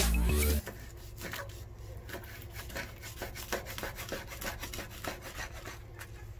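Knife sawing through a rack of smoked pork spare ribs with a firm bark on a wooden cutting board: short, irregular scraping and crunching strokes, several a second. A burst of music cuts off about half a second in.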